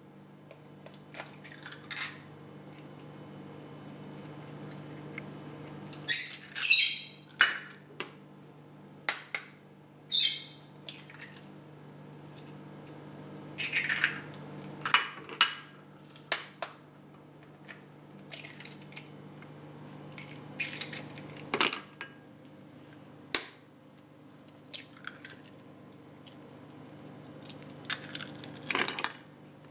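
Eggs being cracked against the rim of a frying pan one after another and dropped into hot olive oil: sharp shell cracks and taps, several followed by a brief sizzle, over a steady low hum.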